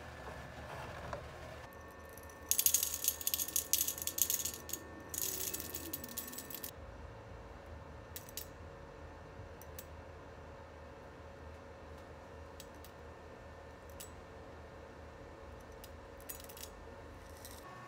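Roasted coffee beans falling from a tipped glass jar into a stainless steel bowl on a scale: a rapid rattle of many beans for about four seconds, then single beans clinking in one at a time, a few seconds apart, as the weight is topped up.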